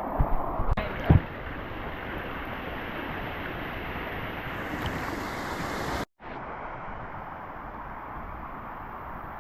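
Rushing water of a waterfall and rapids, a steady noise, with a few sharp knocks in the first second or so. The sound drops out completely for a moment about six seconds in, then the water noise resumes.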